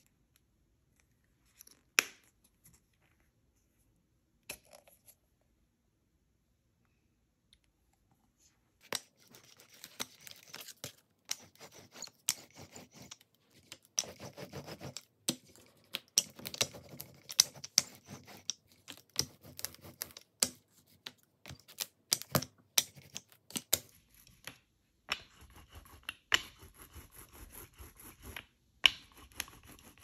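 Paper and craft materials handled in journaling work: rustling and crinkling with many sharp clicks and taps. It is sparse for the first few seconds, then busy from about nine seconds in.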